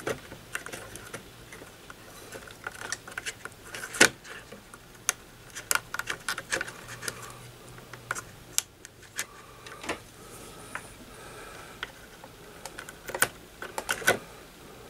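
Scattered small clicks and taps of a soldering iron tip and wire working against a variable resistor's solder lug as the wire is unsoldered, with a sharper click about four seconds in and a few more near the end.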